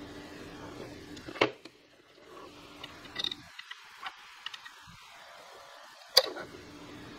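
Pliers working the metal bracket of an MSI GT 710 graphics card, bending it to snap it in two: two sharp metallic clicks almost five seconds apart, with a few lighter ticks between.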